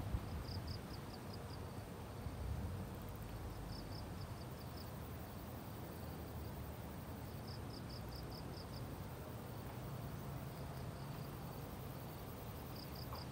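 An insect calling in the undergrowth: short trains of about six rapid, high-pitched pulses, repeated roughly every three and a half seconds, over a low rumble.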